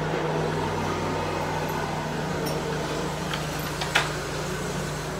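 A steady low mechanical hum, with a short sharp click about four seconds in.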